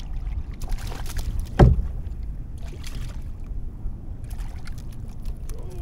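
Low steady rumble of wind and water around a kayak on open water, with one sharp knock about a second and a half in and scattered light clicks.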